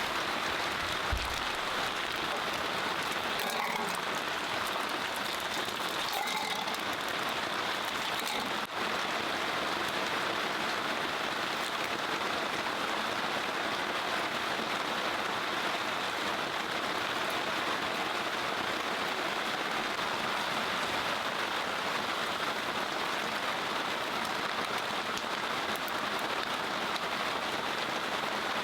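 Steady rain falling on a surface, an even, unbroken hiss.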